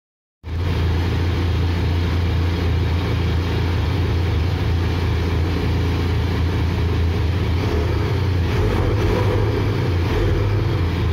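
Benelli TRK 502's 500 cc four-stroke parallel-twin engine idling steadily, cutting in suddenly about half a second in.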